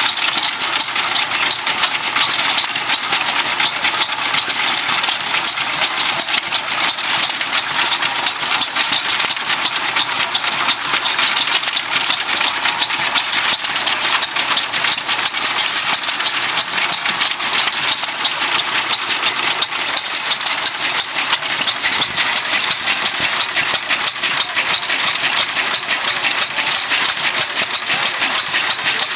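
Antique stationary hit-and-miss engines running, a steady rapid clatter of firing and valve gear.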